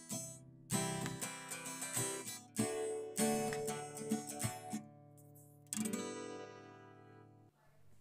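Acoustic guitar tune: strummed chords struck a few times, each left to ring and fade, dying away near the end before the next strum.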